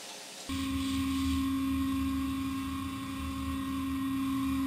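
Machinery of a tunnel boring machine running: a steady hum over a low rumble that cuts in abruptly about half a second in, after a brief faint hiss.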